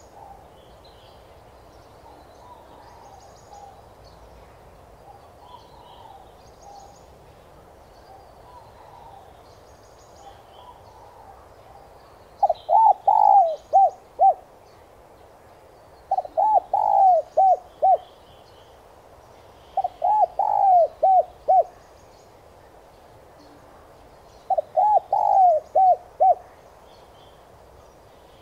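Spotted dove cooing its song phrase. A faint, distant one is heard first, then from about halfway in a close bird repeats a loud phrase of five or six short rising-and-falling coos four times, about every four seconds. Small birds chirp faintly in the background.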